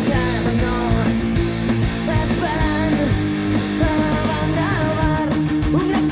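Rock band playing a song with guitars, bass and drums on a steady beat, and a melodic line bending in pitch above held chords.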